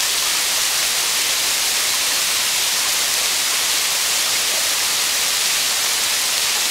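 Water of a tall waterfall cascading down rock slabs: a steady, even hiss.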